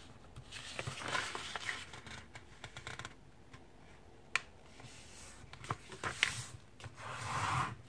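A sheet of paper being handled and folded by hand on a tabletop: soft rustling and sliding as it is lifted and laid over, with a few sharp crinkles and clicks as the fold is pressed flat.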